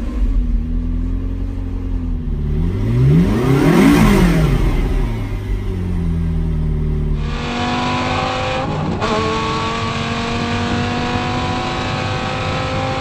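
McLaren MP4-12C's twin-turbo V8 idling just after starting, with one rev that rises and falls about three to five seconds in. About seven seconds in the sound changes to a car accelerating hard, heard from inside the cabin, its pitch climbing steadily with a brief break for a gear shift near nine seconds.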